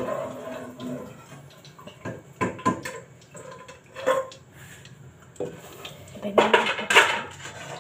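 Kitchen clatter of dishes, containers and utensils being handled on a shelf: scattered sharp knocks and clinks, with a louder burst of clatter about six seconds in.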